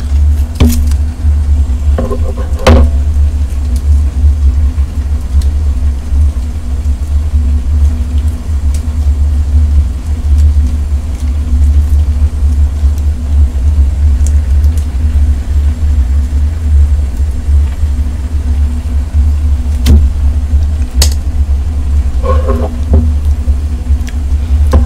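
Loud, steady low rumble of portable butane gas burners heating two pots of ramen. A few short, sharp snips and crinkles as sauce packets are cut open with scissors and squeezed.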